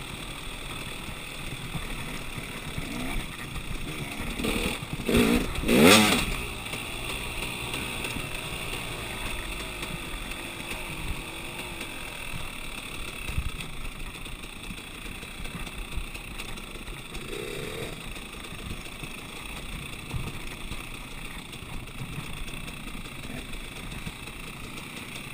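Off-road dirt bike engine running along a gravel trail, revving up hard in a few quick rising bursts about five to six seconds in, the loudest moment, then settling back to a steady run.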